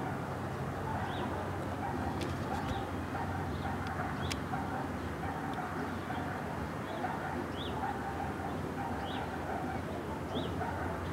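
Outdoor background: a small bird chirps briefly about every second and a half over a steady low hum, with a couple of faint clicks a few seconds in.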